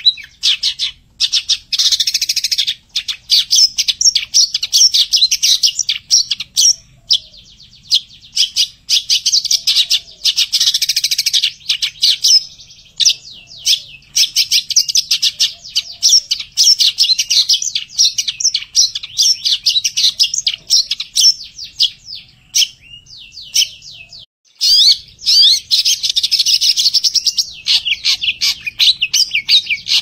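Long-tailed shrike (cendet) singing a loud, fast, dense chattering song of rapid high notes in long runs, broken by a few short pauses.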